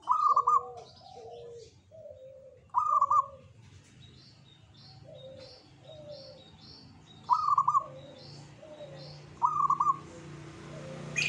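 Zebra dove (perkutut) cooing: four loud rolling coo phrases a couple of seconds apart, with softer, lower coo notes repeated between them. Faint high chirps sound behind.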